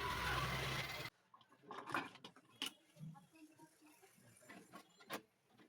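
Scattered light clicks and taps of small metal parts, screws and a screwdriver against the PC case, as a motherboard is fastened into it. A dense background hiss fills the first second and cuts off abruptly about a second in.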